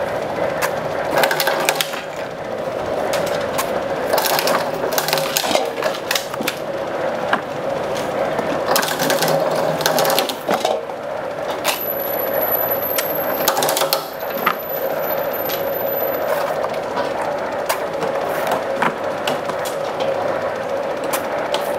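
Coconuts being cut and trimmed: irregular sharp knocks and scraping strokes over a steady hum.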